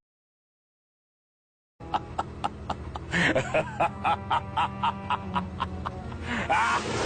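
Silence for nearly two seconds, then a meme sound-effect clip begins: music with a steady, quick beat, with a short vocal cry over it twice.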